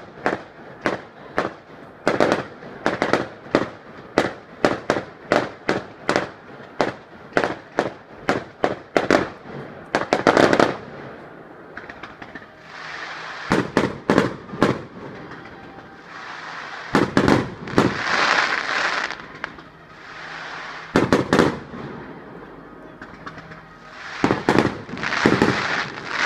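Firework display: a fast run of sharp shell bursts, two or three bangs a second, for about the first ten seconds. After that the bangs thin out into scattered clusters, with longer spells of rushing noise between them.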